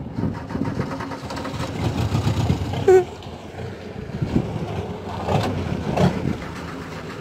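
Engine of a crash-damaged car running at idle, with a short vocal sound about three seconds in.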